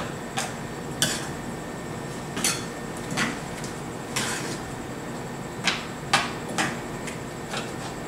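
A spoon stirring mushroom curry in a frying pan, knocking and scraping against the pan about ten times at an uneven pace, with one longer scrape about four seconds in. A steady hum runs underneath.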